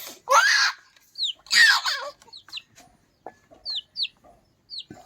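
Chickens calling: two loud squawks in the first two seconds, with short, high, falling peeps repeated throughout.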